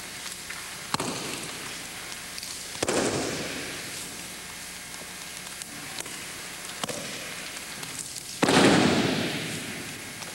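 Aikido breakfalls: a thrown partner hitting the mat, three thuds, about a second in, near three seconds in and near the end, the last the loudest. The later two echo briefly in a large gym.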